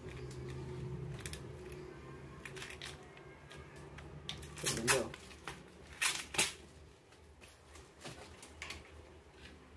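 Scattered knocks, clicks and taps as cabinet panels and parts are handled and fitted during flat-pack assembly. The loudest clatter comes about five seconds in, followed by two sharp knocks about a second later.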